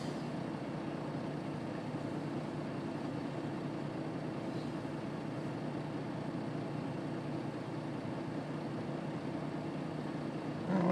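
Semi truck's engine running, heard from inside the cab as a steady low hum.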